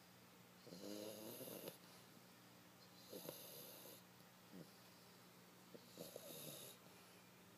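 A French bulldog snoring in its sleep: three soft snores, each about a second long and roughly two and a half seconds apart.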